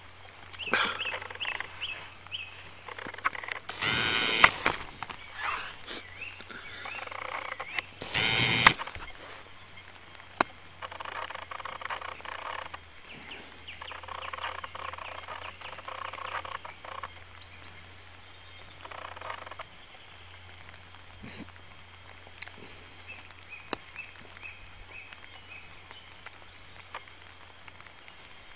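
Birds calling and chirping in open woodland, with two loud rushes of noise about four and eight seconds in.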